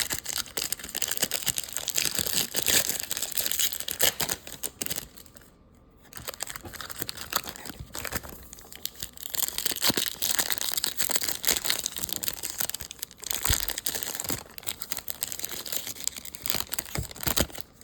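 Baseball card pack wrappers crinkling and tearing as packs are ripped open and handled, in irregular rustling spells with a short pause about five seconds in.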